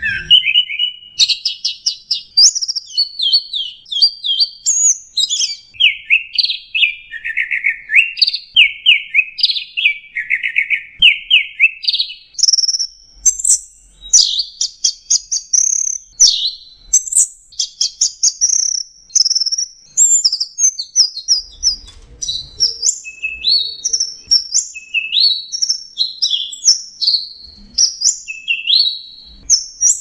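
Orange-headed thrush (anis merah, punglor) singing non-stop in the 'teler' style: an unbroken run of short, high phrases, each a rapid string of repeated notes, jumping from pitch to pitch with hardly a pause.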